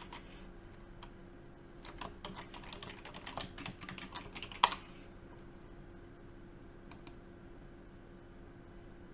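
Typing a password on a computer keyboard: a quick run of keystrokes ending in one much louder key hit about four and a half seconds in. After that only a faint steady hum and a couple of light clicks.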